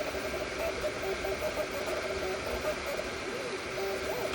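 3D printer printing at high speed: its stepper motors whine in shifting tones that jump and glide up and down as the print head darts about, over a steady hiss.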